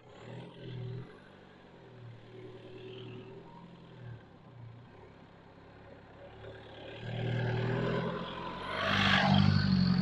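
2018 Isuzu D-Max pickup's 2.5-litre four-cylinder turbodiesel running as it drives along a dirt track toward and past the camera, growing louder as it approaches. Tyre noise on the dirt builds near the end as the wheels pass close by.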